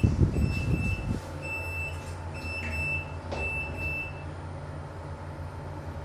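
Fujitec passenger lift's door-closing warning: a string of short high beeps that stops about four seconds in, over a steady low hum of the lift. A low rumble in the first second comes as the doors slide shut.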